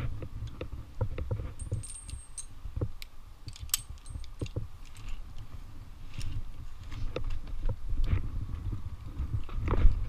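Metal climbing hardware on a single-rope line, carabiners and a rope device, clinking and jangling in irregular clicks as the climber works the rope. A low rumble runs underneath on the helmet-camera microphone.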